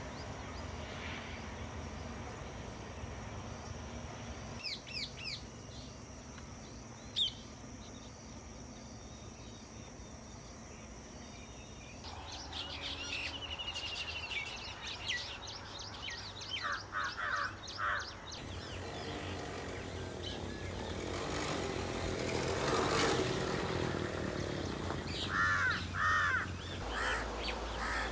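Birds chirping and calling over a steady outdoor background hiss. The calls come in scattered clusters: a few early on, busier chirping from about twelve seconds in, and a few louder, lower calls near the end.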